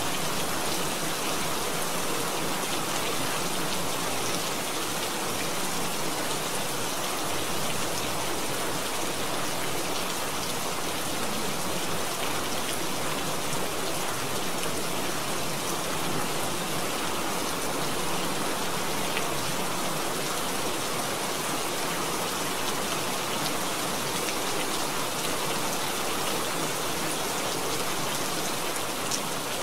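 Steady rain sound: an even, unbroken hiss of rainfall with a few faint drop ticks.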